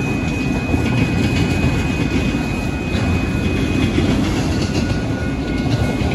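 Freight train of autorack cars rolling steadily past on the rails, its wheels making a continuous loud noise with a thin, steady high whine over it.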